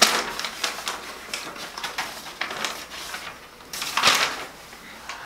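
Sheets of paper rustling and crinkling as they are handed over and taken, with small scattered clicks and one louder swish of paper about four seconds in.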